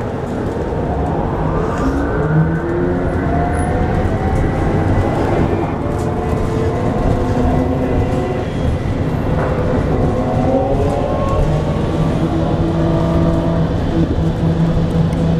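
Electric traction motor of a 2001 Gillig Phantom trolleybus, a rebuilt motor from the old AMG trolleybuses, heard from inside the bus over road rumble. Its whine rises in pitch as the bus picks up speed, eases off, and rises again about ten seconds in.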